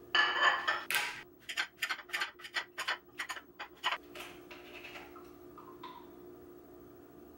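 A plate set down on a granite countertop, then a quick run of sharp knife taps, about three a second, as a cucumber is sliced on the plate. After that come a few small clinks as a vinegar bottle is opened, over a faint steady hum.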